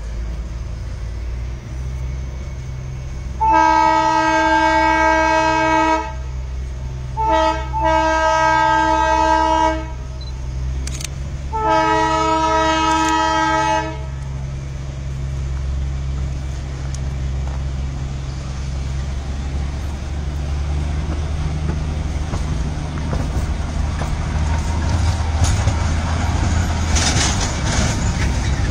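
Darjeeling Himalayan Railway toy-train locomotive sounding its horn four times over a steady low engine rumble: a long blast, a short toot, then two more long blasts of about two seconds each. In the second half the running sound grows louder, with the clatter of the wheels near the end as the train moves.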